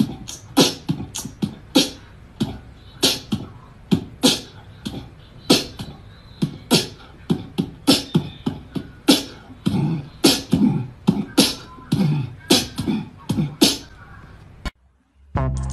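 A fast, uneven run of sharp percussive clicks and pops, about two to three a second, that cuts off suddenly near the end.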